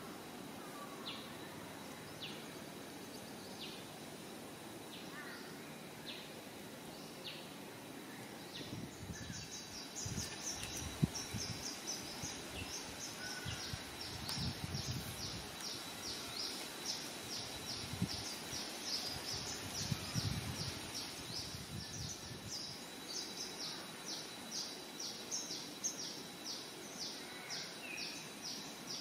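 Outdoor nature ambience: a faint steady high insect-like tone and scattered single high chirps, then from about a third of the way in a fast, regular series of short high chirps, about three a second, that carries on to the end. Some low thuds sit under the chirping in the middle.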